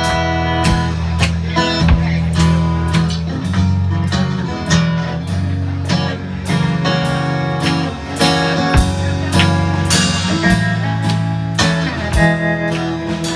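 Live band playing an instrumental passage: strummed guitar over sustained bass notes, with sharp strokes on a steady, regular beat.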